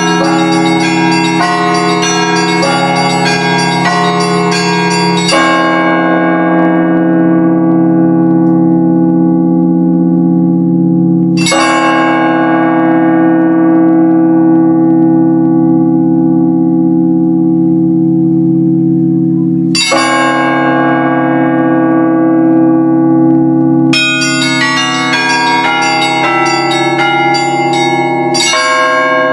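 Russian Orthodox church bells ringing. A quick run of strikes on the small bells gives way, about five seconds in, to single strokes of a deep bell every six to eight seconds, each left to hum out. The rapid small-bell strikes start up again about five seconds before the end.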